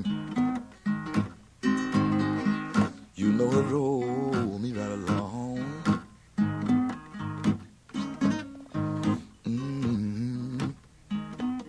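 Background music: a blues guitar break, plucked notes with many of them bent and wavering in pitch, played in short phrases with brief gaps between them.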